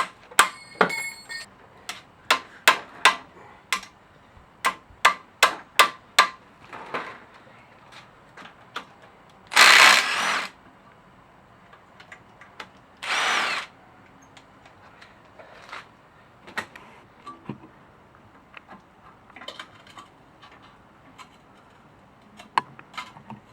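A run of sharp hammer strikes on metal brake parts, about a dozen in quick succession over the first six seconds. Then come two short bursts of a power or air tool, about ten and thirteen seconds in, and a few light knocks of handled parts.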